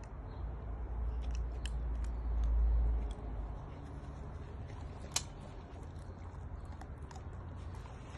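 Bull terrier biting and chewing a raw chicken: scattered wet clicks and crunches, the sharpest about five seconds in, over a low rumble that fades about three seconds in.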